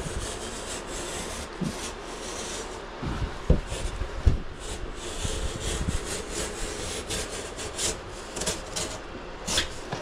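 Box-cutter knife sawing and scraping through the corner of a cardboard packing box, a continuous rough rasping with a few sharp knocks about three and a half and four seconds in.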